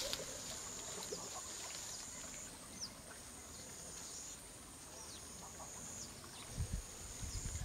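Lakeside wildlife ambience: a steady high insect buzz with short, downward-sliding bird chirps now and then, and a few low thumps near the end.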